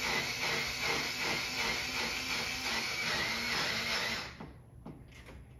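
Cordless drill-driver running steadily as it drives a screw through plastic J-channel into the wall, stopping about four seconds in. A couple of faint clicks follow.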